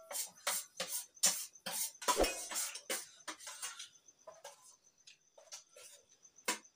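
Metal spoons scraping and clinking against stainless steel plates while eating, a quick irregular run of scrapes and taps that thins out after about four seconds.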